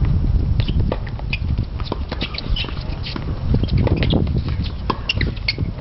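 Tennis rally on a hard court: scattered sharp clicks of racquets striking the ball and players' shoes tapping and scuffing, over a constant low rumble.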